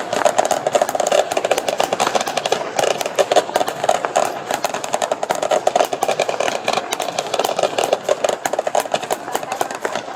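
Fireworks crackling: a dense, continuous run of rapid small pops and bangs that stops abruptly at the end.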